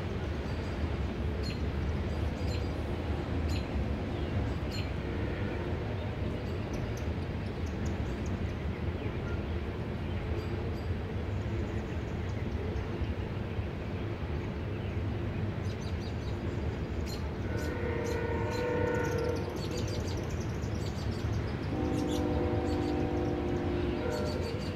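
CSX freight train rolling through a grade crossing, with a steady low rumble of its cars. A multi-tone train horn chord sounds about two-thirds of the way through for a second or two, then again near the end for about three seconds.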